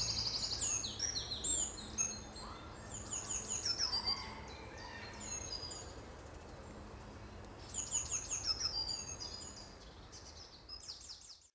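Birds singing: bursts of quick, repeated high chirps and trills that come and go, fading near the end before cutting off suddenly.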